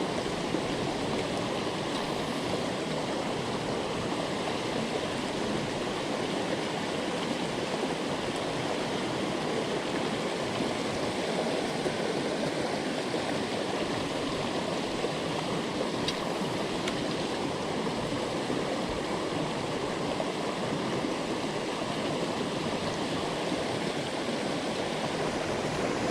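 Steady rush of flowing water in a headwater stream.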